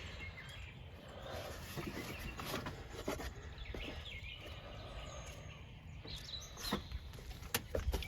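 Scattered light clicks and knocks of hands and tools working on the air intake in an engine bay, with birds chirping faintly in the background.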